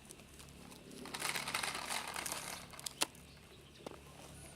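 A crinkling rustle for about a second and a half, followed by two sharp clicks.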